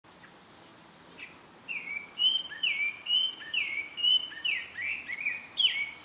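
A wild songbird singing a quick series of repeated clear notes, each sliding down in pitch, about two a second. The run starts a little under two seconds in and breaks off just before the end, with fainter high calls in the first second.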